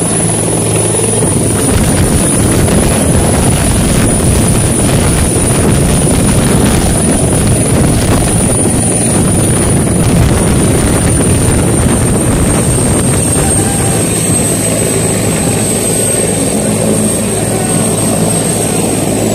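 Turbine helicopter hovering low and settling onto the pad, its rotor and engine running loud and steady. A high turbine whine sits over the rotor noise and sinks slightly in pitch in the second half.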